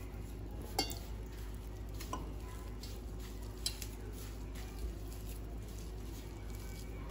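Hands rubbing and squishing a damp gram-flour and spice stuffing against a steel plate while mixing it, over a steady low hum. A few light clicks against the metal come through, the loudest about a second in.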